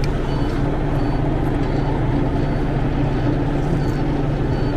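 Heavy air-brake truck's diesel engine idling steadily, with a faint electronic warning beep repeating about every two-thirds of a second.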